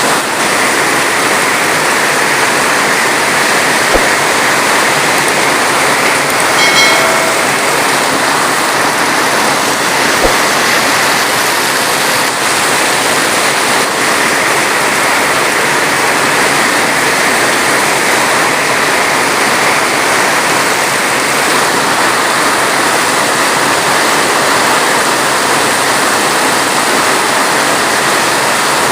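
Heavy rain falling steadily: a dense, even hiss without breaks. There are two faint clicks and, about seven seconds in, a brief pitched sound.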